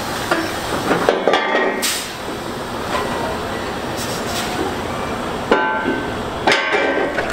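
Heavy-haul truck running as it moves a multi-axle lowboy trailer, a steady diesel noise. Sharp metal clanks with a brief ring come in a cluster about a second in and twice more near the end.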